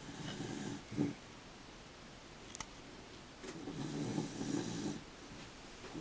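Two slow, rough snore-like breaths: one at the start, ending in a short louder puff about a second in, and a longer one about three and a half seconds in.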